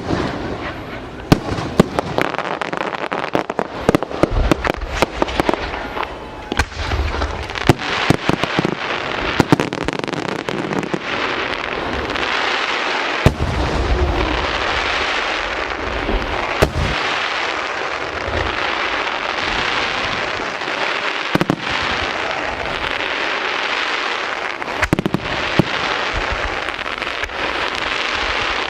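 Aerial fireworks display: a rapid run of shell bursts and bangs, giving way about a third of the way in to dense, continuous crackling with occasional louder booms.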